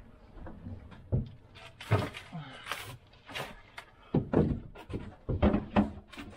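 Wooden furniture knocking and bumping as it is stacked inside a moving truck's plywood-lined box: a series of irregular clunks and thuds.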